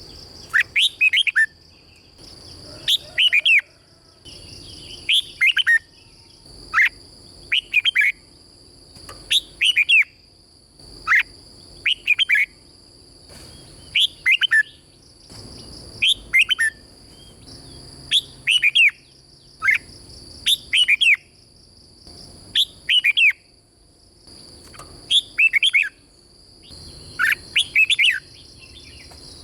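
Red-whiskered bulbul singing: short phrases of quick, falling whistled notes, repeated about every one to two seconds. A steady high-pitched hum runs underneath.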